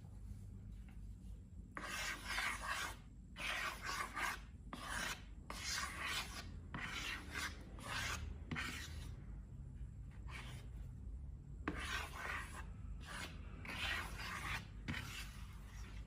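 Short rubbing, scraping strokes made by hand during slime making, one after another at uneven spacing, starting about two seconds in, with a short pause about ten seconds in.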